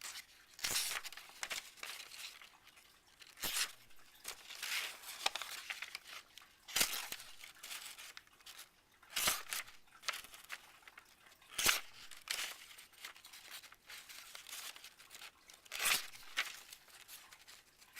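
A freshly sharpened knife blade slicing into a sheet of paper in a cut test, a short tearing rasp with each stroke, about seven or eight strokes spread out, with paper rustling between them.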